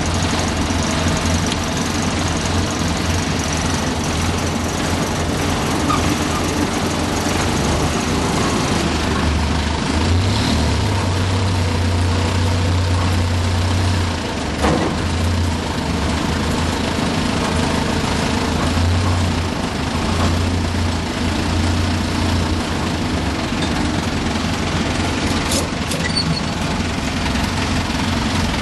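Engine of a small Brookville industrial locomotive running steadily, heard from inside its cab as the locomotive travels along the track. A single sharp knock is heard about halfway through.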